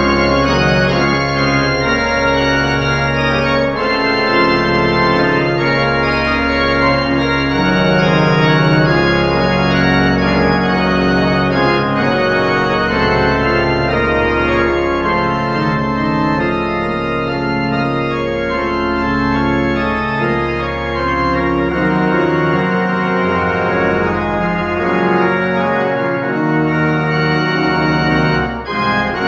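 Church pipe organ, newly restored, playing a loud piece in full sustained chords over deep pedal bass notes. There is a brief break in the sound about a second before the end, then the playing resumes.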